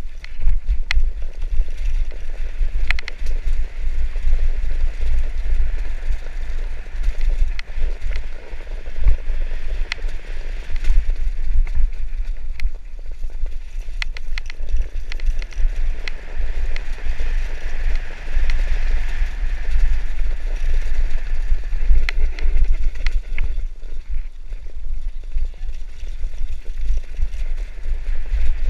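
Mountain bike descending a loose, rocky trail at speed. Wind buffets the microphone in a constant rumble, the tyres crunch over stones, and the bike rattles with frequent, irregular sharp knocks from impacts.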